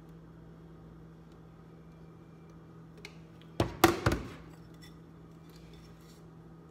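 Three quick, sharp knocks of kitchenware against the countertop, close together about three and a half seconds in, over a steady low hum.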